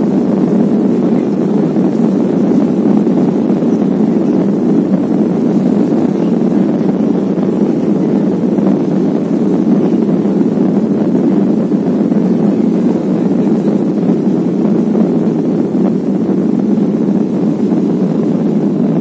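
Steady cabin noise of a jet airliner moving along the runway: engine noise and rushing air heard inside the cabin as a low, even rumble.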